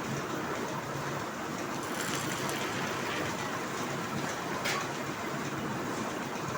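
Concrete mixer running steadily with a continuous rattling churn, with one sharp click about four and a half seconds in.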